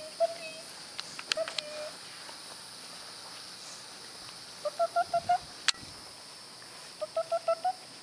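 Two quick runs of five or six short, evenly spaced hooting notes a couple of seconds apart, over a steady high insect buzz, with a sharp click between them.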